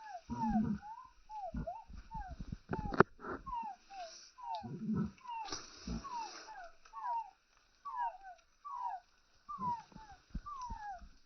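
Chicks peeping: a steady run of short, falling chirps, one or two a second, over low rustling thumps, with one sharp knock about three seconds in.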